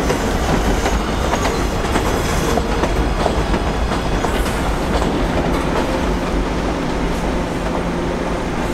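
Kawasaki R211A subway cars rolling along an elevated steel structure, with the wheels clicking over the rail joints. A steady low hum comes in about halfway through.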